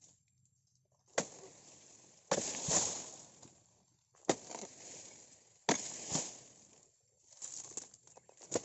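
Oil palm harvesting chisel on a long pole chopping into the frond stalks at the base of an oil palm: four or five sharp chops a second or more apart, each followed by about a second of rustling.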